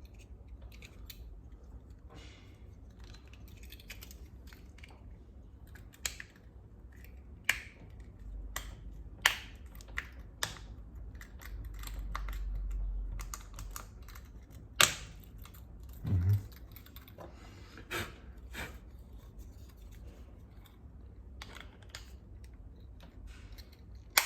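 Scattered sharp plastic clicks and taps at irregular intervals from handling a car key fob remote while putting its case back together after a battery change, with a dull low bump partway through.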